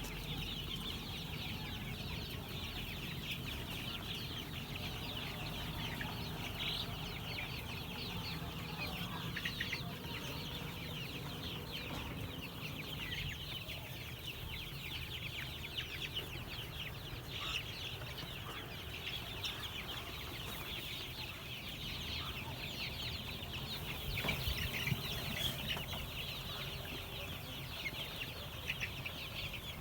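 A flock of month-old chicks peeping and chirping, many short high calls overlapping without a break, over a low steady hum.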